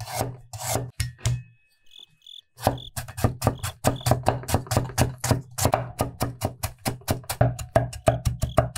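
Chinese cleaver chopping fresh ginger on a round wooden cutting board. A few slow slicing strokes, a pause of about a second, then rapid mincing chops at about five a second.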